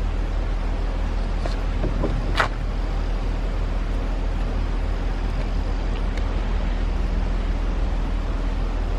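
Heavy diesel machinery running steadily in a constant low drone, with a single short sharp knock about two and a half seconds in.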